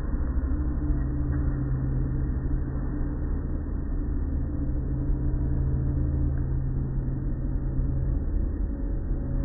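Automatic car wash machinery running, heard from inside a car as the cloth-strip brush curtain sweeps over it: a steady low hum with a couple of held tones.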